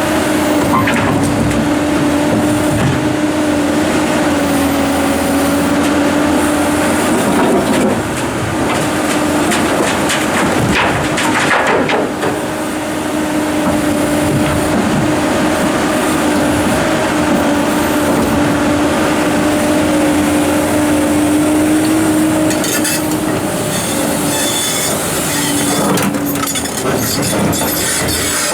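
Komatsu PC290-11 hydraulic excavator working under load: its diesel engine and hydraulics run with a steady whine that wavers and breaks off now and then. Big rocks knock and scrape a few times, around the middle and again near the end.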